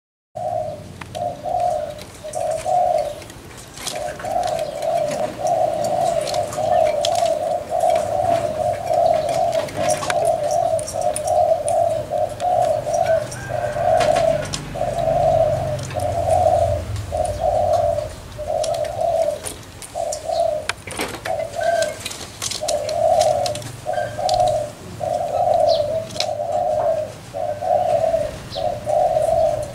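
Two spotted doves trading bowing coos (gù), a near-unbroken run of low coos about two a second, with a short pause about three seconds in.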